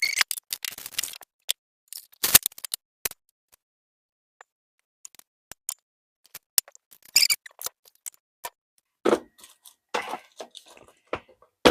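Scattered small clicks, taps and brief rustles of food and kitchen things being handled, busiest in the first few seconds and again in the second half, with a quieter stretch between.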